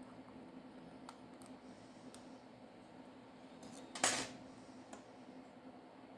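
Small metal tools and phone parts handled on a workbench: a few light clicks, then one louder, brief metallic clatter about four seconds in, over a faint steady hum.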